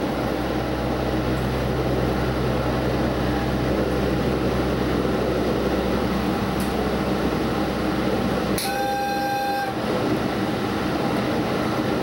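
Diesel express train running, heard from the front observation seat: a steady low engine drone under wheel and track noise, then about two-thirds of the way through a single train horn blast lasting about a second. The low engine drone drops away as the horn sounds.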